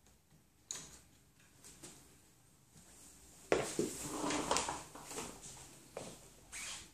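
Handling noises on a Concept2 rowing machine: a single click, then a couple of seconds of clattering and sliding as the machine is leaned on and its handle taken up, and two more short knocks near the end.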